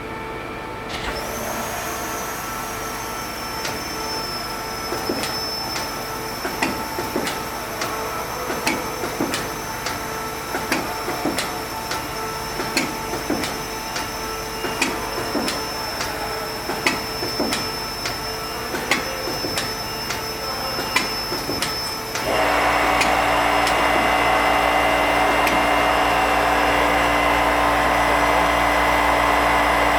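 Nakamura-Tome Super NTX CNC multi-tasking lathe running: a steady high whine with sharp ticks about once a second, then about 22 seconds in a much louder steady whirring noise with a low hum starts up and holds.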